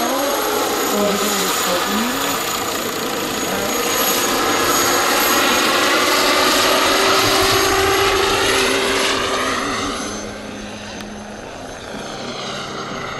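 Jakadofsky Pro X kerosene turbine and rotors of a giant 1:2.6 scale SA-315B Lama model helicopter in flight, with a steady high-pitched turbine whine over the rotor noise. After about ten seconds it grows quieter and the sound sweeps as it flies away.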